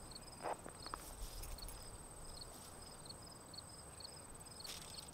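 Insects chirping faintly: a steady high trill, with a shorter high chirp repeating about three times a second. A couple of brief faint clicks in the first second.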